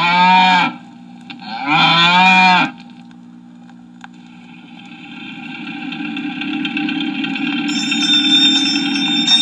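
A cow mooing twice, each moo about a second long, played from an old sound-effects record. From about halfway a different, steady noisy sound swells up and keeps going, with high tones joining near the end.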